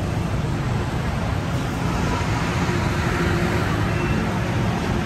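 Steady road traffic noise on a busy street, with engines running and the hubbub of a crowd of passers-by.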